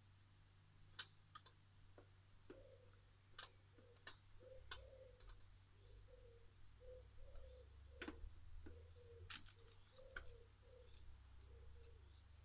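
Faint, scattered clicks and scrapes of hand tools working the end of an electrical cable, over a faint run of short low calls repeating about twice a second in the background.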